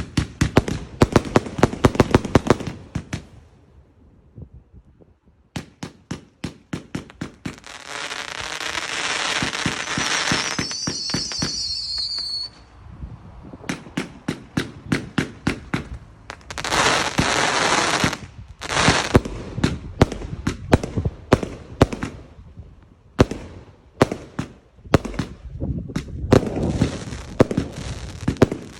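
Consumer firework barrages firing: volleys of sharp bangs in fast succession, a short lull about four seconds in, then stretches of hissing crackle, with a high whistling tone that stops abruptly about twelve seconds in.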